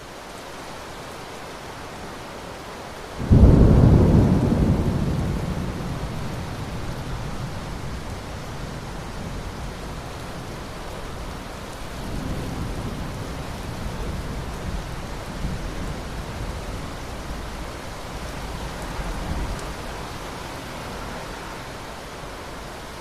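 Steady rain with thunder: a sudden loud thunderclap about three seconds in that rumbles away over several seconds, then fainter rolls of thunder later on.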